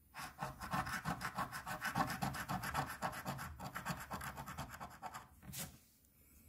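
A coin scraping the latex coating off a scratch-off lottery ticket in rapid, even back-and-forth strokes, ending with one sharper scrape and stopping a little over five seconds in.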